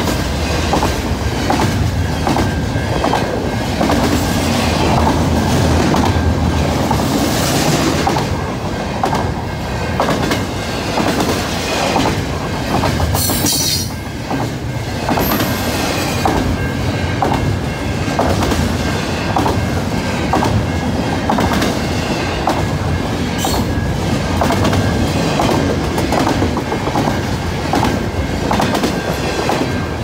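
Double-stack container freight train rolling past close by: a steady rumble of the cars with the wheels clicking over the rail joints in an even rhythm. A brief high wheel screech about halfway through.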